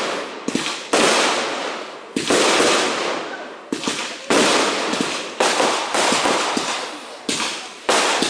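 Aerial fireworks display: a rapid string of loud bangs, roughly one a second, each dying away in a rumble and crackle.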